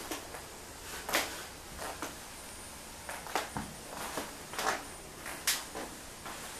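Scattered light knocks and clicks, about eight at irregular intervals.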